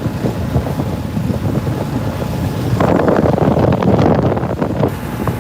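Boat under way at sea, its engine running steadily under wind buffeting the microphone; it gets louder for a couple of seconds around the middle.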